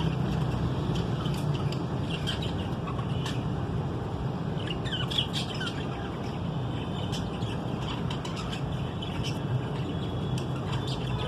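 Green budgerigars chirping and twittering in short scattered calls, busiest about two and five seconds in, over a steady low rumble.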